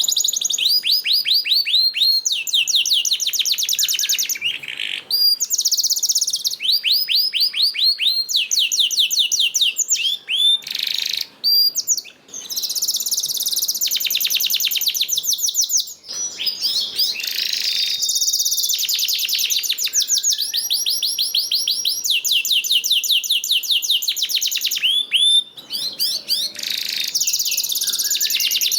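Canary singing a continuous song of rapid, repeated trills and rolls, high-pitched, in phrases of a few seconds with brief pauses between them.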